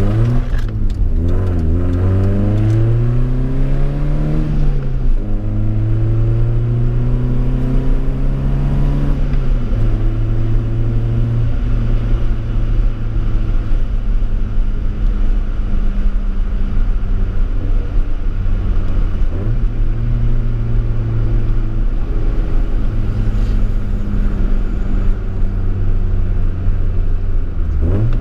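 BMW E30 318i four-cylinder engine with a sports exhaust, heard from inside the cabin: it pulls up through the gears, its pitch climbing and dropping back at two upshifts in the first ten seconds, then holds steady at cruise and rises again near the end.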